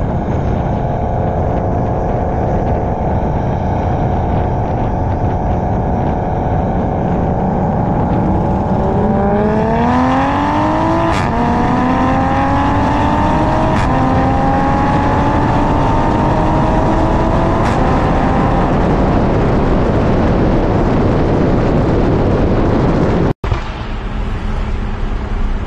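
Toyota GR Supra's 3.0 turbocharged straight-six through a full catless exhaust, droning steadily, then rising in pitch under hard acceleration with a few sharp cracks along the way. Near the end the sound cuts out for a moment and gives way to a steadier, slightly quieter engine hum heard from inside the cabin.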